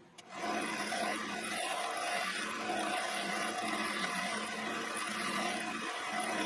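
Quorn tool and cutter grinder's motor and cup wheel switched on about a third of a second in, coming up to speed and running with a steady hum.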